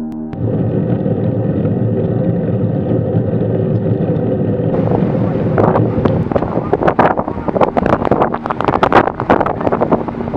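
Wind rushing over the microphone of a camera on a moving road bike. After about five seconds it turns gusty, with frequent buffeting thumps.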